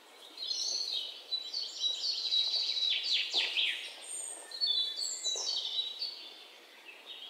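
Birds chirping and singing, many short overlapping calls with quick downward-sweeping notes, fading away toward the end.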